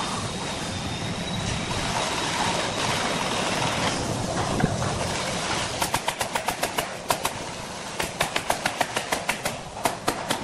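Steady workshop noise. About six seconds in, a wooden cable reel being worked on takes two quick runs of sharp knocks, several a second, with a few more near the end.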